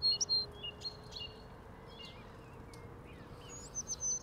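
Songbirds singing: quick runs of high, downward-sliding whistled notes near the start and again near the end, with scattered faint chirps in between.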